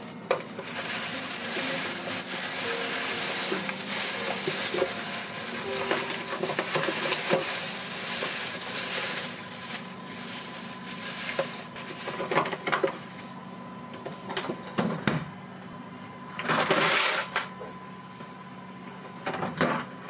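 Polythene bag crinkling and rustling as frozen ice packs inside it are handled in a freezer drawer, followed by a few knocks and short rustles.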